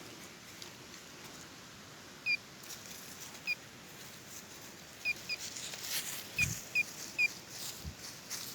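Short, sharp high chirps, about seven of them at irregular intervals, from a small bird calling in the woods, over a few soft rustles and knocks.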